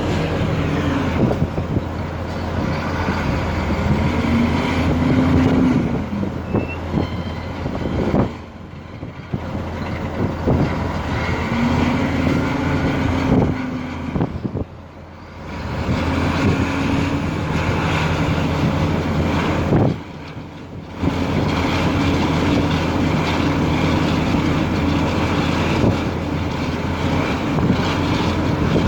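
Heavy diesel vehicle engine running, its pitch rising and falling again and again as it revs up and settles back, with three short quieter spells.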